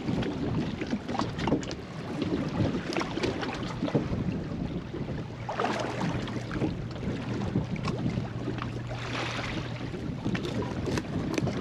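Wind on the microphone and water against a small fishing boat's hull, with scattered knocks and clicks from the boat. A low steady hum comes in about five seconds in and stops near ten seconds.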